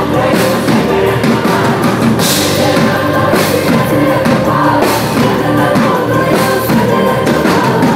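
Live pop concert music: a woman singing into a microphone over a loud backing track with a steady drum beat.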